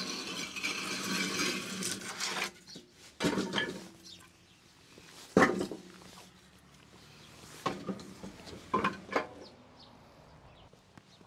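Kitchen utensils and cookware being handled: a scraping rustle for the first couple of seconds, then a few sharp knocks and clinks, the loudest about five seconds in.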